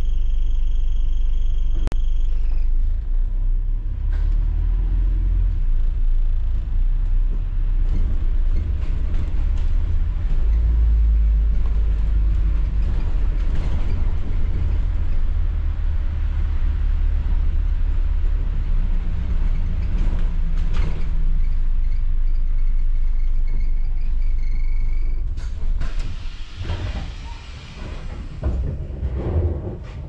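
Double-decker bus heard from the upper deck: a loud, steady low engine and road rumble as it pulls away and drives on. Near the end the rumble drops and there is a few seconds of hiss as the bus slows to pull in.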